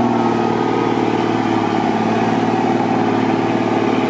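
Off-road vehicle's engine running at a steady, even pitch as it wades slowly through a flooded track.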